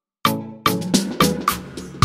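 Background music with a steady drum beat, about two hits a second, starting just after a brief dropout at the very beginning.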